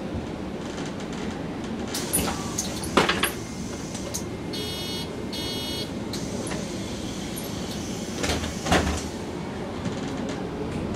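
MAN NG 313 articulated city bus standing with its engine idling while its doors work: two short bursts of door warning beeps about halfway through, and sharp knocks about three seconds in and near the end.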